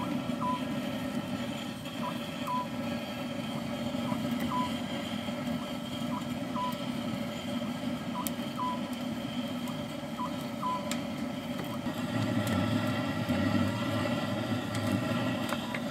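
Electronic beeping, a short pip followed by a slightly longer tone, repeating about every two seconds over a steady rushing background; the beeping stops about eleven seconds in, and a few sharp knocks come near the end.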